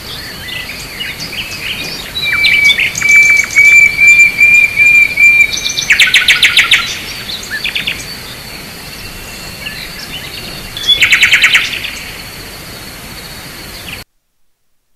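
Countryside ambience of birds chirping and trilling, with a steady high thin buzz behind. Loud rapid trills come about six and eleven seconds in. The whole sound starts suddenly and cuts off suddenly near the end, like a looped ambience track.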